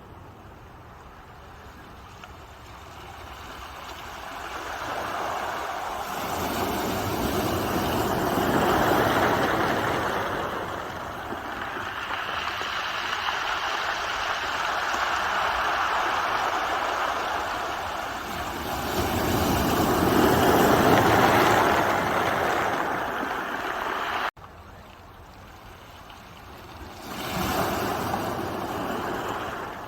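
Ocean waves breaking and washing up a shore, swelling and falling back in several slow surges. The sound drops off suddenly about two-thirds of the way through, and one more wave comes in near the end.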